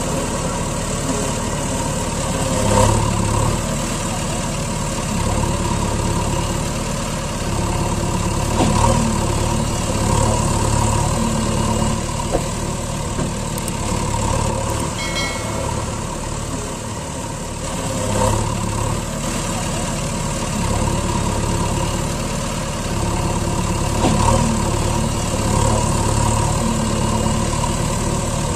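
Truck engine running steadily at idle, swelling a little every few seconds. A few brief high tones sound about halfway through.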